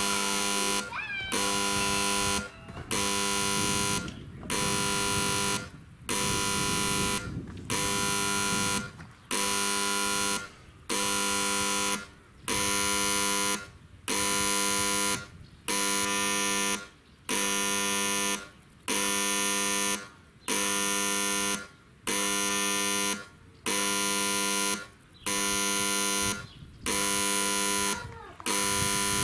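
Soviet-type (SSSR) level-crossing warning horn, an electric buzzer, sounding in evenly repeated pulses about a second long with short gaps between them: the crossing warning is active.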